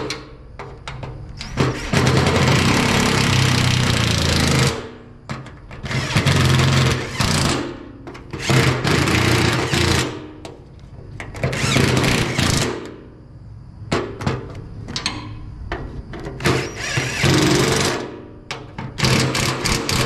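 Impact wrench running bolts down in about seven bursts of one to three seconds each, with short pauses between them.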